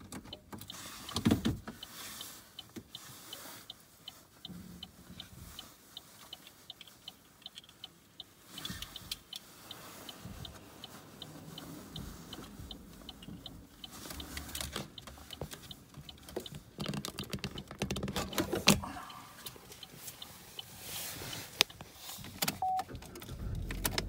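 Inside a stopped car: quiet cabin noise with scattered clicks, knocks and rustles of a phone being handled, and a faint regular ticking through the first half.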